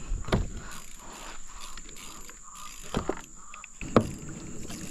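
A few hollow knocks and bumps on a plastic sit-on-top fishing kayak as the rod and paddle are handled, the loudest about four seconds in, over a steady high-pitched insect drone.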